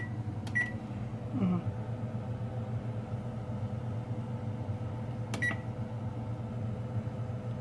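Keypad beeps from a Whirlpool range's control panel as its timer is set: one short beep about half a second in and another about five seconds in. A steady low hum runs underneath.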